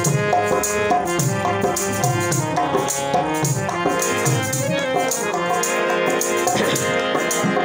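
Harmonium playing an instrumental interlude of a Saraiki folk song, its reeds holding steady chords under the melody. A steady beat of hand percussion and a shaken rattle runs underneath.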